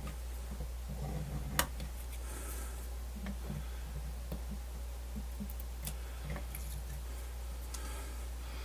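Light clicks and taps from handling small plastic radio parts and tools, with one sharper click about one and a half seconds in, over a steady low hum.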